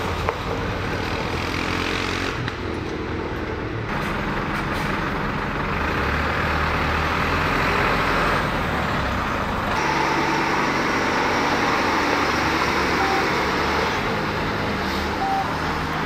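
Motor vehicle engines running steadily: an ATV moving along a gravel forest road, then diesel fire engines driving up. The sound changes abruptly about four and ten seconds in.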